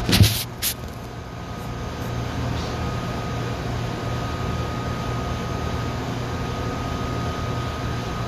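Steady hum of a commercial kitchen exhaust hood fan running, with a faint high tone held over it. A few sharp knocks come in the first second.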